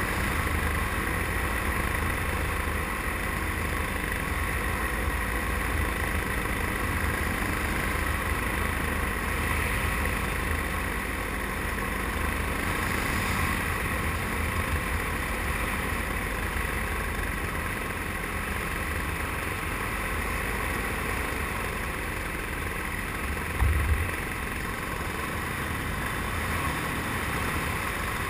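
Paramotor engine and propeller running steadily in flight, heard from the pilot's seat with a constant low rumble. Near the end there is a brief low thump.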